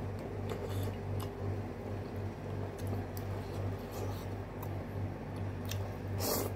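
Person eating noodles with chopsticks: small clicks and chewing, then a loud slurp of noodles near the end, over a steady low hum.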